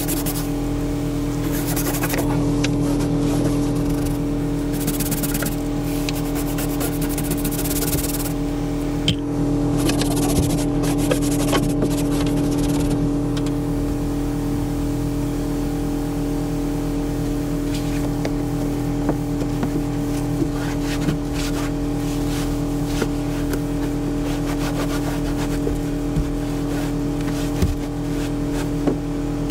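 A steady machine hum runs throughout, under the sounds of a cab floor being cleaned by hand. There are bursts of hiss between about two and thirteen seconds in, then light rubbing and scattered knocks.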